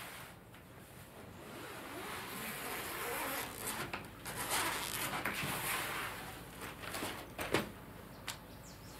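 A suitcase being unzipped and opened: several seconds of zipping and fabric rustle, then a few sharp clicks or knocks, the loudest about seven and a half seconds in, as the lid and clothes are handled.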